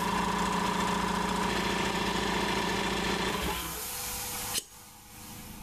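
Air compressor pump running, then stopping about three and a half seconds in as it reaches cut-off. A hiss of air carries on for about a second as the unloader line vents and the automatic tank drain valve gives a little spit of air and water, then cuts off sharply.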